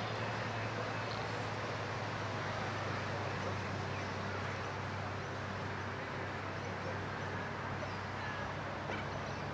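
Steady outdoor background noise with a low, even hum underneath; no distinct events.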